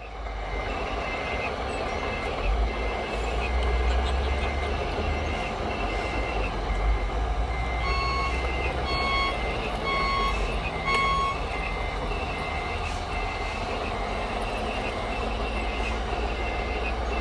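Reversing alarms from the sound units of scale radio-controlled construction machines: one beeper repeating steadily about once a second, joined about eight seconds in by a second, lower beeper that sounds four times, over a steady low rumble.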